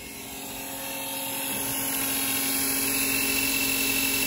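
Electric motor of a belt-driven tool post milling attachment on a metal lathe running, getting louder over the first couple of seconds and then holding a steady hum with a high whine.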